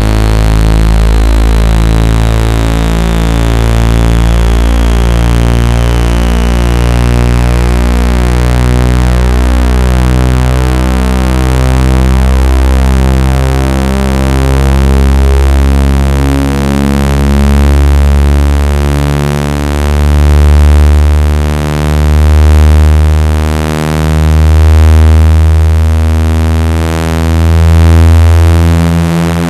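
Synthetic speaker water-eject tone: a loud, deep bass hum with a stack of pulsing, beating overtones, meant to vibrate a speaker cone and shake trapped water out of the grill. A faint falling whistle fades out in the first third, and from about two-thirds through the level swells and dips roughly every two seconds.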